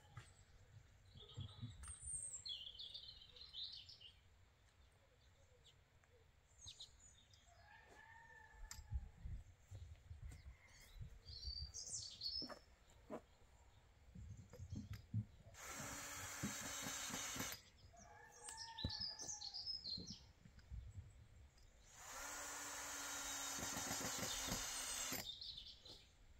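Cordless drill running in two steady bursts, about two and three seconds long, in the second half, fixing boards to the bottom of a wooden chicken run. Between the drill runs, chickens call now and then and small birds chirp.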